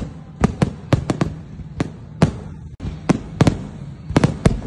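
Irregular bursts of sharp bangs and cracks, several a second, over a low rumble, with a brief break about halfway through.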